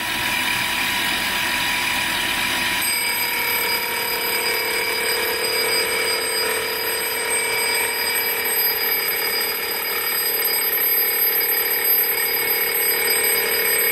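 Milling machine running, spinning a clock-wheel tooth cutter held in a drill chuck over a brass wheel blank, as the first tooth cut is set up. A steady whine, with a lower hum joining about three seconds in.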